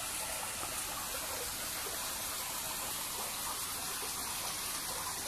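Steady rush of running water in a garden fish pond.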